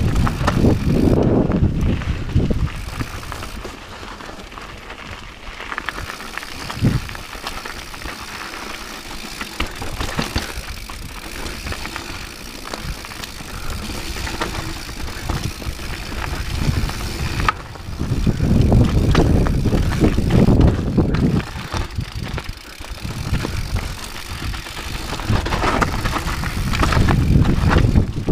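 Rocky Mountain 790 MSL mountain bike riding down a rough, rocky dirt trail: tyres crunching over loose stones and dirt, with the chain and bike rattling over bumps. Wind rumbles on the microphone, loudest at the start, about two-thirds of the way through and near the end.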